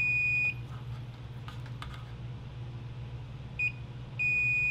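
Digital multimeter's continuity/diode-test beeper sounding as the probes touch a power-board component: a steady high beep that cuts off about half a second in, a short chirp past the middle, then another beep of just over a second near the end. The beep marks a near-short reading across a part that still reads bad.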